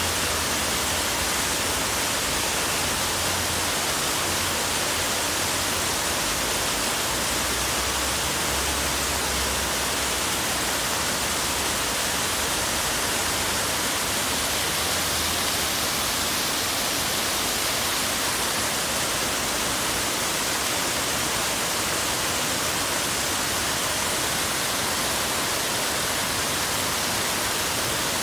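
Many vertical jets of a large plaza fountain spraying up and splashing back into its basin: a steady, unbroken rush of water.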